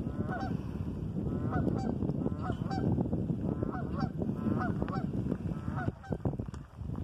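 Geese honking repeatedly, one or two short calls a second, over a steady low rushing noise.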